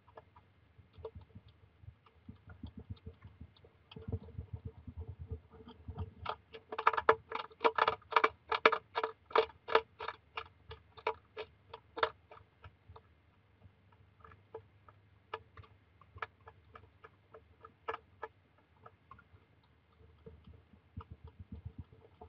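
Hedgehog crunching dry kibble: a run of sharp crunching clicks, about four or five a second, loudest in the middle and sparser and quieter before and after.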